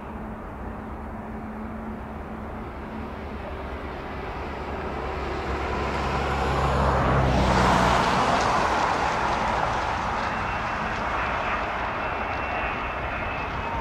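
Airbus A380-861 airliner on final approach, its four Engine Alliance GP7270 turbofans running at approach power. The jet noise grows louder to a peak about halfway through as the aircraft passes closest, then eases off with a thin steady whine in the last few seconds.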